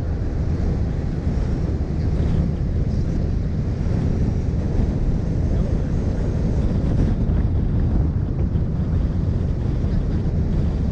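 Steady wind buffeting on an outside microphone, with the low rumble of a Mini Cooper S Roadster driving at city speed.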